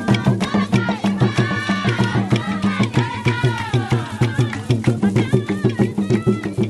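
Traditional San dance song: several voices singing together over fast, rhythmic hand-clapping and percussion.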